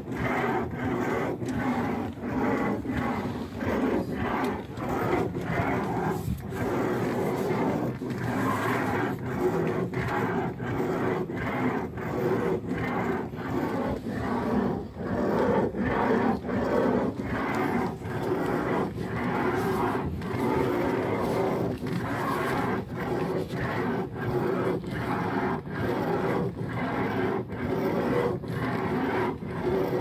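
Electric power-steering rack of a 2010 Ford Fusion V6 knocking over and over, roughly twice a second, as the steering wheel is turned, over the steady hum of the idling engine. The knocking is the steering-box fault being shown.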